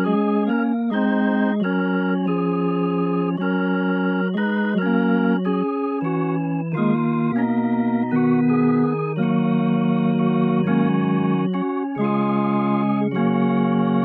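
CollaB3 virtual tonewheel organ, a Hammond B3 emulation, playing held chords that change every second or so, with a wavering shimmer in the upper notes.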